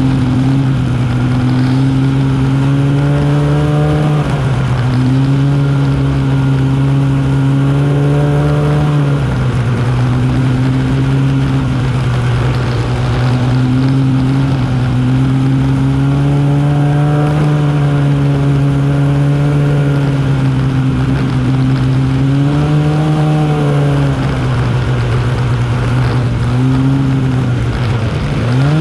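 Arctic Cat snowmobile engine running under way. Its pitch holds steady, then dips and climbs back a few times as the throttle is eased off and reopened, most deeply about four, nine and twenty-seven seconds in.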